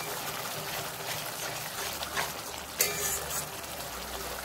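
Wet onion-paste masala sizzling and bubbling in hot mustard oil in an aluminium kadai, a steady hiss broken by a few sharp clicks.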